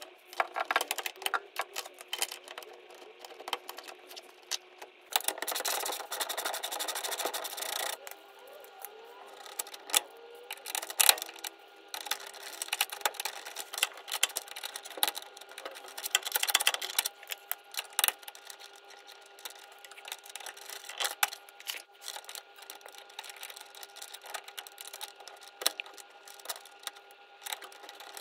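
Ratchet wrench clicking in runs as a bolt is wound in on the car's underside, with a long run of fast clicking about five seconds in. Scattered knocks of the socket and tools on metal, over a faint steady hum.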